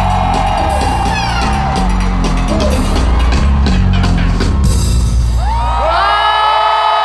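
Live concert sound heard from within the crowd: a heavy bass-driven backing track plays under fans screaming and whooping. About six seconds in the beat drops away, leaving the crowd screaming and cheering as the song ends.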